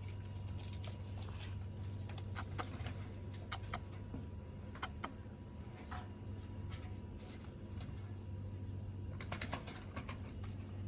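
Goat hooves clicking and tapping on a hard floor in scattered steps, some in quick pairs, over a steady low hum.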